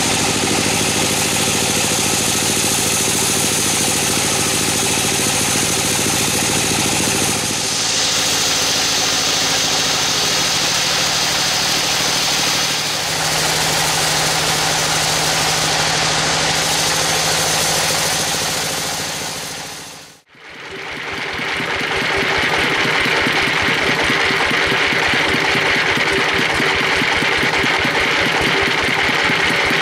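Bandsaw mill running loud and steady as its blade cuts through a large teak log, with the steady hum of its drive running underneath. About two-thirds of the way through, the sound dips away for a moment, then the mill runs on steadily.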